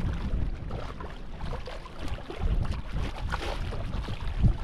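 Wind rumbling on the microphone over water sloshing and splashing as a snorkeler kicks her fins at the surface beside the sailboat's hull, with a louder thump near the end.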